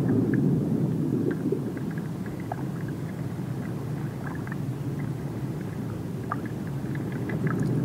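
Ambient film soundtrack: a low, steady rumbling drone with faint scattered ticks and short tones above it.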